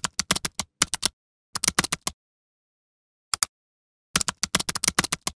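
Typing sound effect: quick runs of sharp keyboard-like clicks in several bursts, with dead silence between them.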